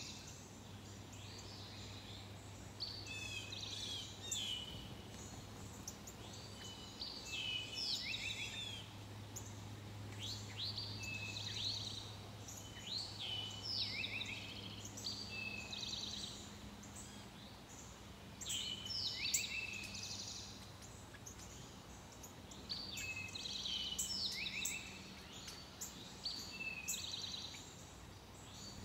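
A songbird singing short, varied phrases of sweeping whistles and trills over and over, a new phrase every second or two, over a faint low steady hum.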